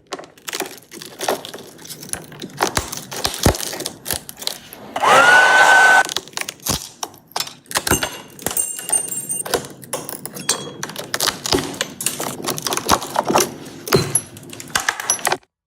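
Irregular taps, knocks and cracking as the laser-loosened back glass of an iPhone 13 Pro Max is tapped and broken away from the frame. About five seconds in, a loud tone rises and holds for about a second.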